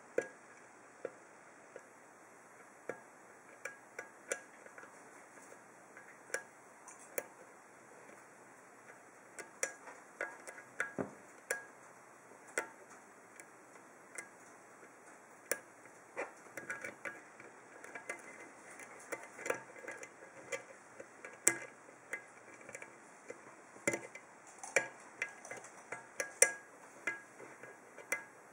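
Steel hook pick working the pins of a Thomée oval pin-tumbler cylinder held under light tension: irregular small metallic clicks and ticks, spaced out at first and coming more often from about halfway through.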